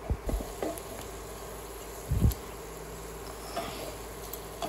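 Dull knocks of a spatula and pan as fish steaks in a simmering curry are turned, the loudest about two seconds in, with a few light clicks later. A steady buzzing hum runs underneath.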